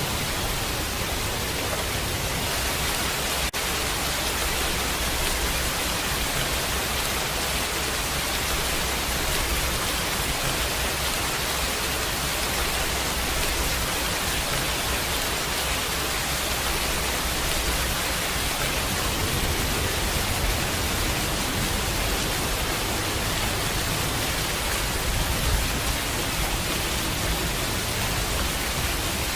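Steady heavy rain, an even hiss with a low rumble underneath.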